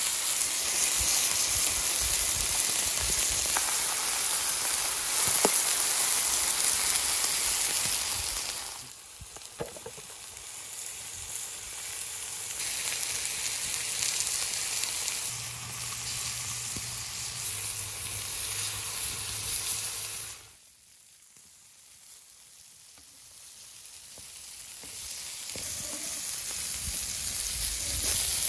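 Potato and tomato slices and lamb fat sizzling and frying on a hot stone slab. The hiss dips about a third of the way in, drops almost away about two-thirds in, then builds back up.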